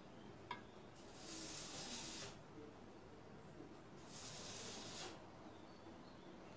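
Faint high-pitched hissing in short bursts, two of them, each lasting about a second and ending abruptly with a sharp click, repeating about every three seconds.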